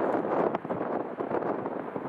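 Strong wind buffeting the microphone: a dense, uneven rushing noise with irregular gusts and pops.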